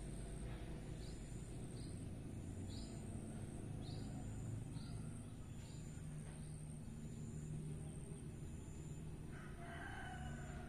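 Faint rural ambience: a small bird chirping about once a second, a high insect trill pulsing evenly, over a low steady background rumble. A rooster starts crowing near the end.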